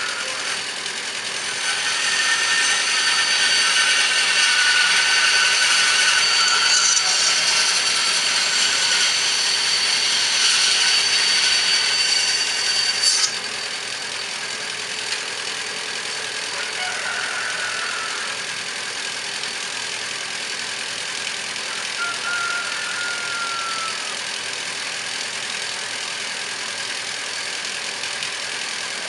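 Chainsaw running hard for about ten seconds, then cutting off suddenly, followed by a quieter steady engine-like running.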